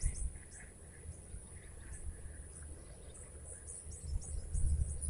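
Insects buzzing in a steady high whine, with faint short chirps in the first couple of seconds, over a low rumble.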